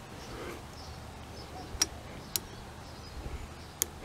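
Click-type torque wrench set to 15 foot-pounds, pulled on motorcycle cylinder head nuts: three sharp metallic clicks, about two seconds in, half a second later, and near the end. Each is the wrench breaking over at its set torque.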